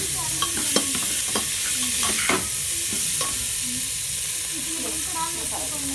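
Potatoes, cauliflower and peas sizzling in hot oil in an aluminium pressure cooker while being stirred with a slotted spoon. A steady sizzle runs throughout, with the spoon scraping and clicking against the pot over the first three seconds or so.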